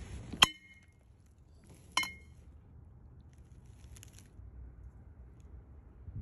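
Metal baseball bat striking ice three times, each hit a sharp clink with a brief metallic ring; the third hit is softer.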